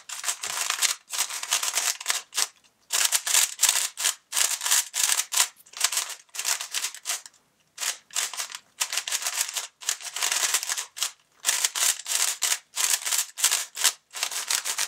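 Moyu Weilong 3x3 speedcube being turned rapidly by hand: quick runs of short plastic clicks and scrapes as the layers snap round, broken by brief pauses. The cube is new and unlubricated, so it turns dry.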